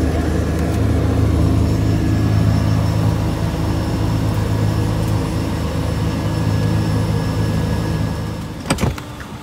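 Cessna 208B Grand Caravan's PT6A turboprop engine and propeller running at low taxi power, heard inside the cabin: a steady low drone with engine tones. It dies down near the end, followed by a couple of sharp clicks.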